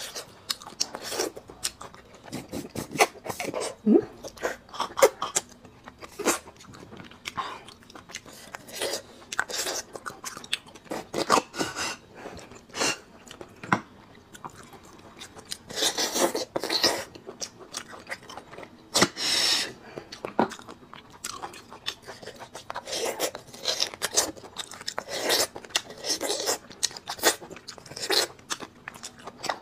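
Close-miked eating of bone marrow: slurping and sucking the soft marrow out of hollow bone sections, with wet chewing and lip smacks between. Several longer slurps of about a second each come in the second half.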